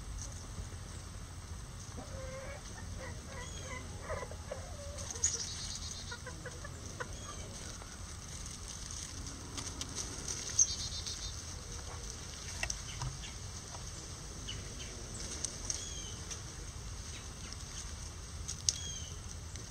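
Bantam chickens clucking, with a longer run of calls from about two to five seconds in, and a few sharp taps along the way.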